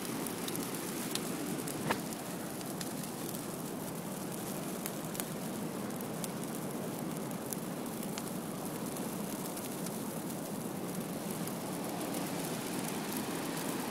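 A Christmas tree burning as a bonfire, its fire crackling and popping steadily, with one sharper pop about two seconds in.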